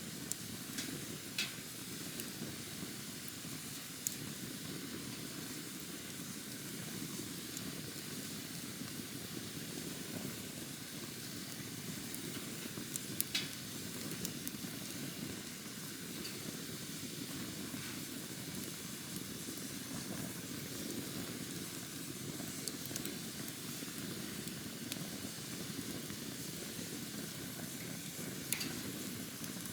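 Wood campfire burning, with a steady low rush of flame and fine crackling, broken by a few sharp pops of the wood; the loudest comes about 13 seconds in.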